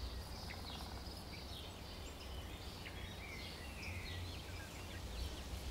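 Woodland ambience: scattered birds chirping and calling over a low, steady background rumble.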